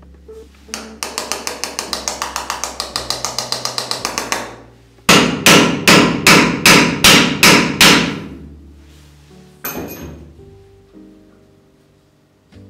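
Black powder being rammed into a 1/2-inch rocket casing, the rammer struck on a wooden block: first a quick run of light taps, about nine a second, then about eight heavy mallet blows, roughly three a second. Background music runs underneath.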